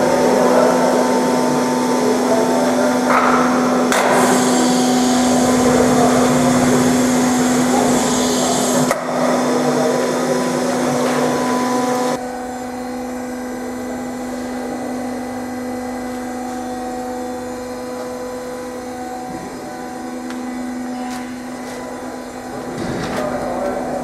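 Concrete block vibropress running: a steady machine hum under clattering and rattling from the press and its pallets, with a burst of hiss for a few seconds. The noise drops abruptly to a quieter hum about halfway through.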